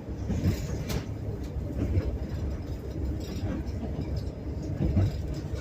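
Passenger train running, heard from inside the carriage: a steady low rumble with occasional sharp clacks of the wheels over the joints of old, unwelded rail.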